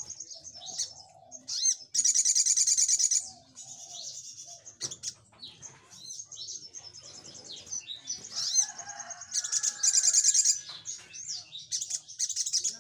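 Male olive-backed sunbird (sogok ontong) singing: sharp, high chirps throughout, broken twice by a loud, very rapid trill, the first about two seconds in and the second about ten seconds in, each lasting about a second. These are the fast-fire 'nembak' bursts that keepers use to provoke other birds to answer.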